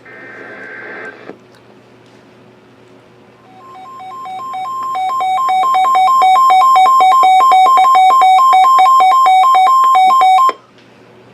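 NOAA Weather Radio alert sequence: a short screech of digital SAME header data tones, then a weather radio's alarm of two tones alternating rapidly, swelling louder over a couple of seconds, holding steady, then cutting off abruptly, signalling a new warning about to be read.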